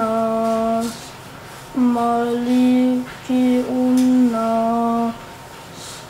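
A young boy reciting the Quran in a slow chant, drawing each syllable out into long held notes, in three phrases with short pauses between.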